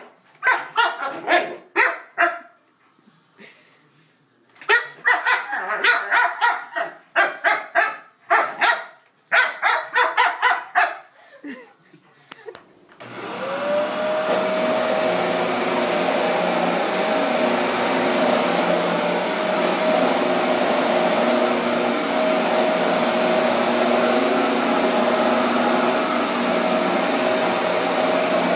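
A boxer–pit bull mix barking in repeated bursts at an upright vacuum cleaner, the reaction of a dog fearful of household noise. About thirteen seconds in, an upright vacuum cleaner starts up, its whine rising as the motor spins up, then runs steadily.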